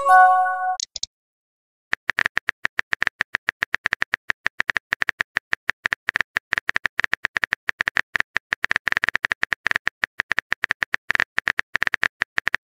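A short pitched message notification tone at the start, then about ten seconds of rapid, irregular clicks from a texting app's on-screen keyboard being typed on.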